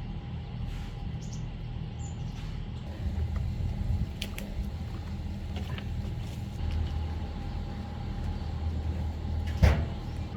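A steady low motor hum with a few small clicks, and one sharp knock near the end.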